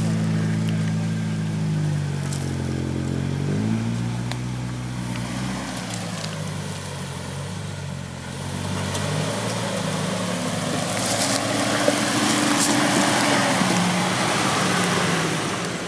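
Jeep Wrangler TJ engine running at crawling speed over a rutted dirt trail, its pitch rising and falling with the throttle. In the second half it comes closer and grows louder, with tyres crunching on dirt and a few sharp snaps.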